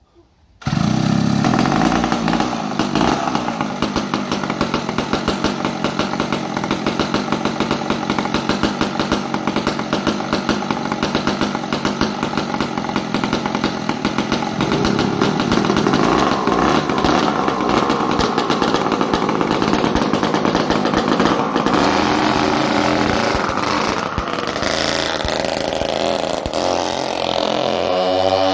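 Twin Power Bee 940 engines on a vintage go-kart running, starting abruptly under a second in and carrying on with a fast, even pulse. Their speed shifts in the second half, with a sweep in pitch near the end.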